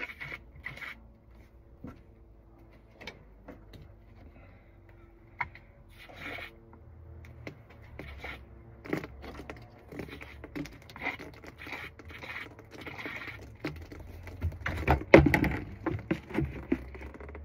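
A pipe cleaner being pushed and worked through a partly blocked sunroof drain tube, giving intermittent scraping and scratching with scattered clicks. The noise grows busier and loudest about three quarters of the way through.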